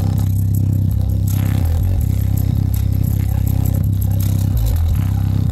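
Sony speaker's woofer playing loud, very deep bass notes that change pitch twice, driven lower than the woofer is designed for.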